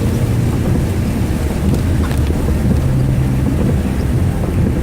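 Truck driving slowly through a storm, heard from inside the cab: a steady low engine and road drone under a constant hiss of rain and water.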